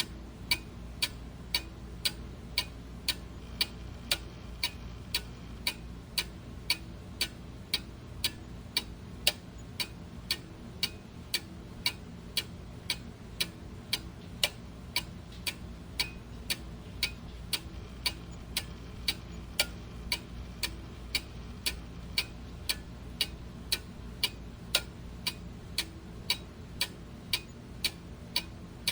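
Clock ticking steadily, about two ticks a second, over a low steady background hum.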